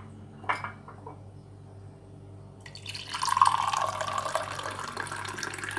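Warm water poured in a stream into a glass mug, starting a little before halfway and running on steadily, with a couple of light knocks near the start.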